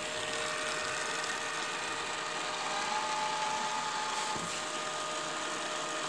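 Beko RS 2121 robot vacuum cleaner running: a steady whirr from its suction motor and brushes, with a faint higher whine for about a second and a half in the middle.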